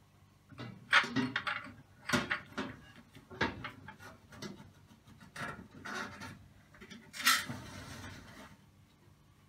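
Glass baking tray of glass custard ramekins knocking and scraping against the oven rack as it is slid in and pushed into place: a run of separate knocks and clinks, the loudest about a second in and near the end, the last followed by a short scrape.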